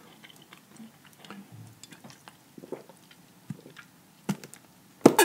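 Plastic soda bottle handled and drunk from: scattered faint clicks and small mouth sounds, then a few louder sharp sounds near the end as the drinking starts.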